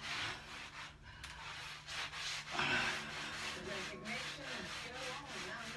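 Cloth rubbing over freshly hung wallpaper in repeated strokes, smoothing the paper onto the pasted wall to press out air bubbles. A brief louder sound comes about halfway through.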